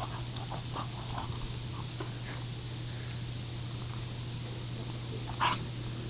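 Two puppies play-wrestling, with faint short growly and whiny sounds, then a single loud short bark about five and a half seconds in.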